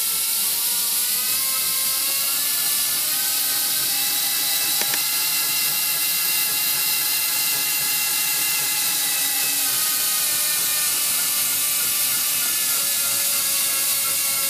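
Air-driven spindle of an EFCO TSV-150 valve lapping machine running, turning the lapping disc on a steam safety valve's nozzle seat with 1200-grit lapping paste. It makes a steady hiss with a whine that drifts slightly in pitch.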